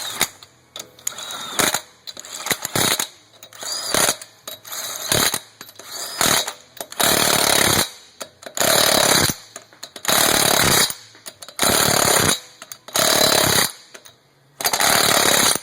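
Impact wrench running the wheel's lug nuts down in a star pattern: short bursts and clicks at first, then six loud bursts of about a second each, one per nut.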